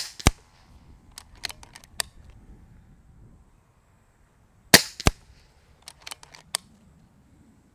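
Two shots from a Kral Puncher Breaker .22 PCP air rifle, the second nearly five seconds after the first. Each is a sharp crack followed about a third of a second later by a second crack, the pellet striking the 50-yard target. About a second after each shot comes a quick run of light clicks as the action is cycled for the next pellet.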